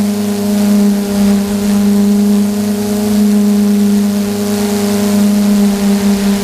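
Electric motors and propellers of a camera drone in flight, heard from its onboard camera: a steady, loud hum holding almost the same pitch throughout, with a hiss of airflow over it.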